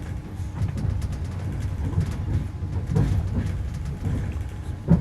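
Sleeping people snoring in a moving train carriage, the snores rising as low swells every second or so over the steady rumble of the train.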